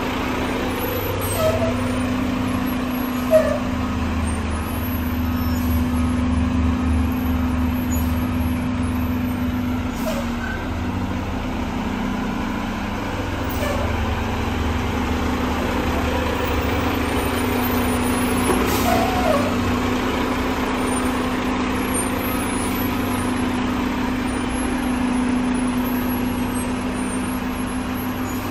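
Diesel engine of a Mack front-loader garbage truck running steadily, with a few faint knocks and a brief air hiss.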